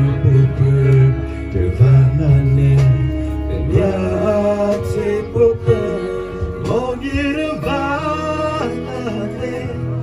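A song playing: instrumental backing with sustained low bass notes, and a man singing from about four seconds in.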